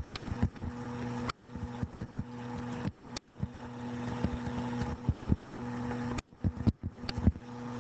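A stylus tapping and sliding on a screen while words are handwritten, many short clicks, over a steady low electrical hum.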